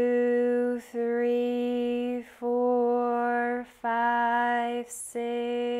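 A woman's voice slowly intoning the exhale count of a 4-7-8 breathing exercise on one held note, each number drawn out for about a second with short breaks between.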